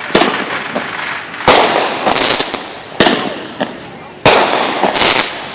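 Consumer aerial fireworks going off: four loud bangs about a second and a half apart, each trailing off in hiss and crackle, with smaller pops between them.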